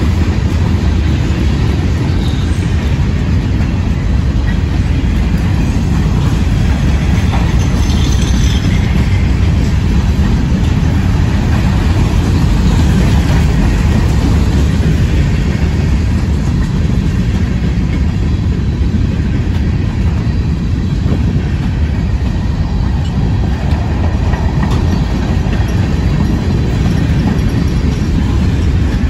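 Cars of a long mixed freight train rolling past at close range: a loud, steady rumble of steel wheels on the rails, with a faint high squeal briefly about eight seconds in.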